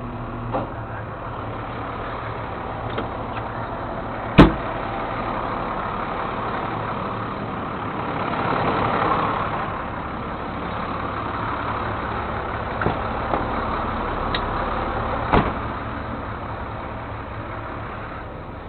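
Vehicle engine running steadily at idle, with two sharp knocks about four seconds in and again past the three-quarter mark, and a rushing swell that rises and falls in the middle.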